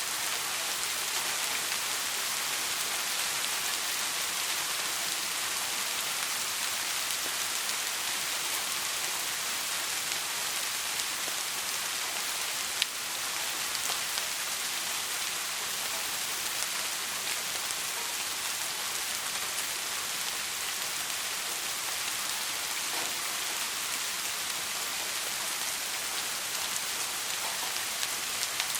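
Steady rain falling on a surface: an even hiss with scattered drop ticks and one sharper click about halfway.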